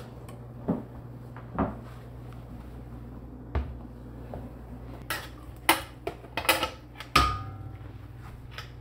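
Metal spoon knocking and scraping in a large aluminium stockpot of chili, with scattered clanks of the pot being handled. The clanks come singly at first and bunch together in the second half, one of them ringing briefly.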